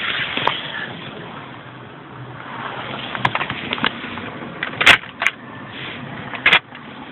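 Handling noises in a car: a run of sharp clicks and knocks over a steady low background, the loudest about five seconds in and again about a second and a half later.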